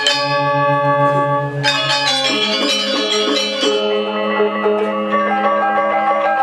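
Balinese gamelan music: bronze metallophones ring in layered, sustained tones over a low gong tone that pulses steadily at first.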